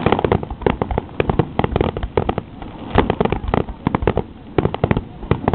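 Fireworks finale barrage: aerial shells bursting in quick, overlapping succession, several bangs a second without a pause.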